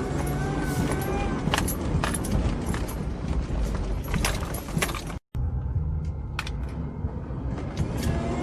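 Off-road vehicle driving over rough ground: a steady low engine and tyre rumble with frequent clattering and rattling. The sound cuts out completely for a moment a little past halfway, then carries on duller.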